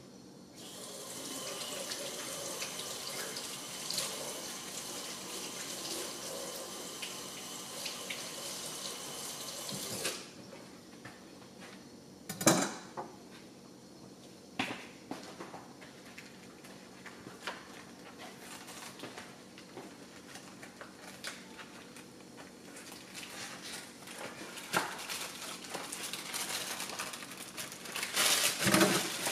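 Kitchen tap running steadily for about ten seconds, then shut off abruptly. A sharp clack follows a couple of seconds later, then a few lighter knocks, and near the end a rustle of plastic packaging.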